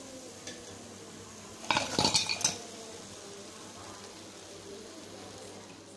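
Stainless steel slotted ladle clinking against a perforated steel bowl as freshly fried cauliflower bajjis are tipped in: a short cluster of clinks about two seconds in, over a faint steady background noise.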